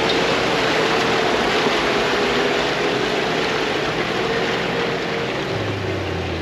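A four-wheel drive's engine running under load as it pushes through a muddy bog hole, with a constant rushing wash of water and mud and a faint steady whine.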